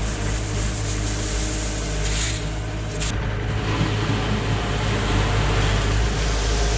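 A heavy machine's engine running steadily, a constant low hum under mechanical noise.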